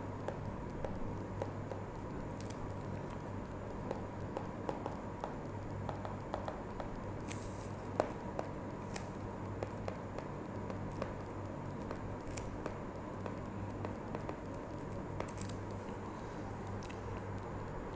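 Low steady electrical hum with irregular light clicks and taps from a stylus writing on a pen tablet, one sharper tap about halfway through.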